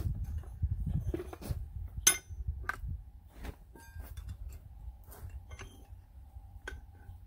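Metal clinks and knocks of blacksmith's tongs, a rod and a cast-iron bench vise being handled, with one sharp ringing clink about two seconds in.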